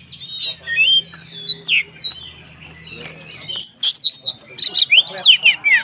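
Oriental magpie-robin (kacer) singing: soft, varied whistles at first, then from about four seconds in a loud, fast run of sharp chirps and down-slurred whistles. A low hum runs underneath and stops about three and a half seconds in.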